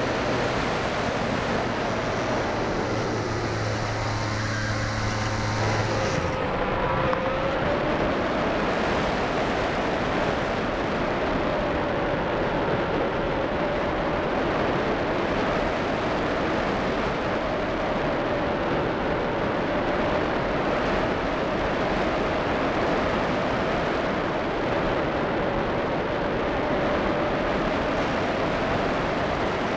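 Airflow rushing over a keychain camera's microphone on a model ASW 15 glider in flight, a steady rush with a faint whistle-like tone that wavers slightly in pitch. About six seconds in, a higher hiss and a low hum drop out, and the rush carries on.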